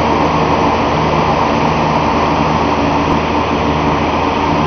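A boat's motor running steadily, a constant low hum under a wash of noise.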